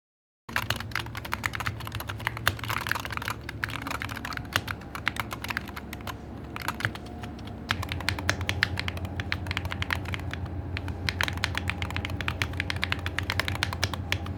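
Mechanical keyboard with pre-lubed Gateron Magnetic Jade linear switches being typed on quickly: a dense, continuous run of clacky keystrokes starting about half a second in, the 'Mahjong sound' the switch is designed to make.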